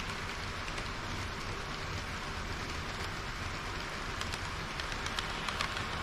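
HO-scale model train of KiHa 40 series railcars running on sectional track: a steady hum of motor and rolling wheels with a fine patter of clicks from the wheels over rail joints. The clicks grow denser near the end as the cars pass close by.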